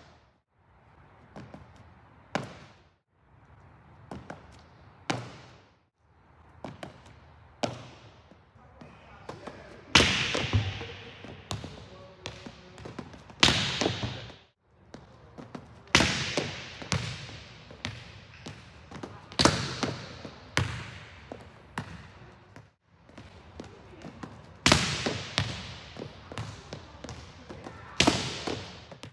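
Volleyballs being struck in a large, echoing gym. In the first ten seconds there are a few lighter hits about every two and a half seconds. After that come hard spikes every three to four seconds, each a sharp slap followed by the ball bouncing on the court floor.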